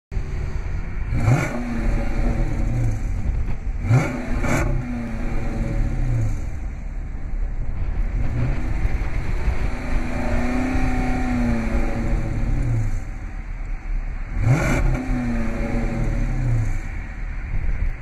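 Dodge Charger Daytona's 5.7-litre HEMI V8 idling with a deep rumble and being revved: sharp blips about a second in, twice around four seconds and again near fourteen and a half seconds, and a slower rev around ten seconds, each falling back to idle.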